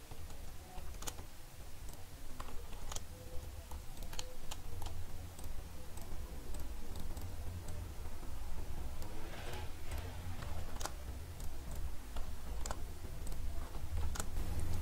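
Irregular, scattered clicks of a computer mouse and keyboard while working in software, over a low steady hum.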